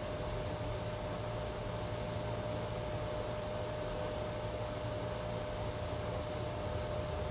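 Steady background hiss and low hum with a constant thin whine over it, unchanging: machine-like room noise.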